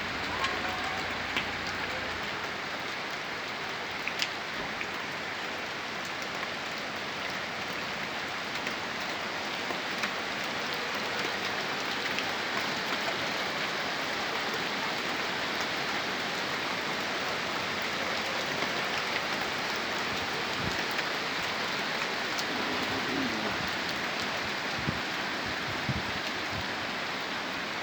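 Rain falling steadily on surfaces, a constant hiss with an occasional sharper drop tick.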